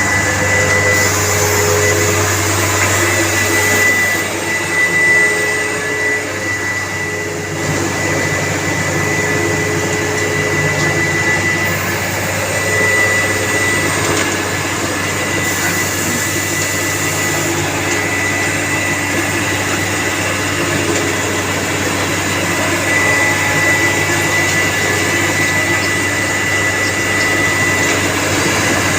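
Concrete batching machinery and a mixer truck running steadily while concrete is loaded into the truck's drum: a continuous loud mechanical drone with a steady high whine over it.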